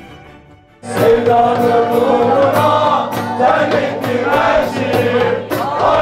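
Live pop song: a male singer with acoustic guitar and a crowd of guests singing along over a steady beat. It comes in suddenly, loud, about a second in, after quieter music fades.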